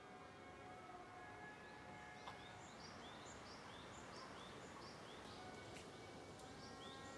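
A bird calling faintly, short high two-note phrases repeated about every two-thirds of a second. The calls pause about five seconds in and start again near the end.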